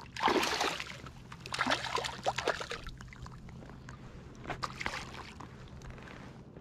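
A hooked smallmouth bass thrashing and splashing at the water's surface close to a float tube. The loudest splash comes just after the start, a second bout of splashing follows about two seconds in, and a few smaller splashes come later.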